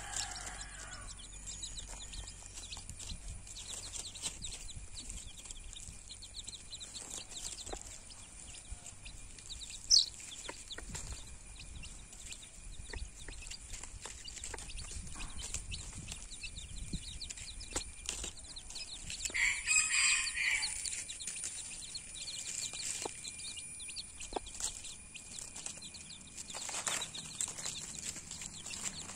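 Baby chicks peeping among dry leaves while a hen forages with them, with one sharp, loud chirp about ten seconds in. A longer, louder call from the hen comes about two-thirds of the way through.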